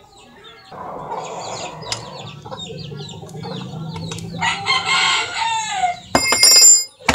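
A rooster crows once, about halfway through, with clucking chickens before it. Near the end comes a sharp metal-on-metal clink that rings briefly, the loudest sound.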